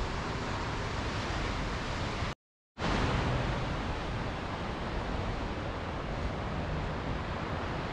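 Steady rushing of wind and ocean surf, with no other distinct sound. The noise cuts out completely for under half a second about two and a half seconds in, then resumes unchanged.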